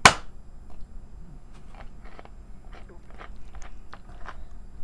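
A sharp knock at the very start, then a run of small clicks and crunches of someone eating and chewing close to the microphone.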